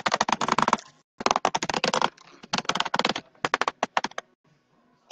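Silver bullet vibrator buzzing as a rapid clatter of clicks, in four short bursts that stop about four seconds in.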